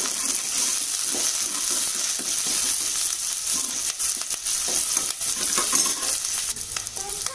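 Chopped shallots, green chillies and curry leaves sizzling in oil in a saucepan, stirred now and then with a steel ladle that scrapes and knocks against the pan.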